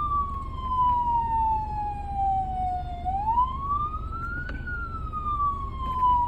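Ambulance's Jiyu LS-100 electronic siren sounding a slow wail. One long falling tone is followed about three seconds in by a rise lasting a second and a half, then another long fall, over a low steady rumble.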